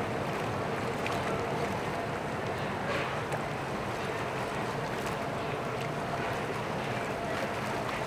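Boat motor running steadily, with water and wind noise.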